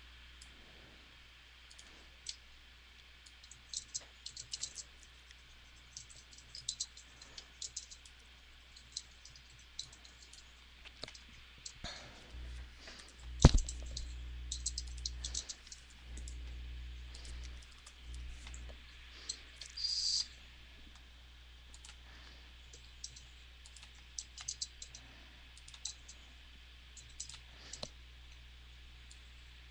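Computer mouse and keyboard clicking: scattered quick clicks, with one sharp louder click about halfway through and a low hum coming and going in the middle.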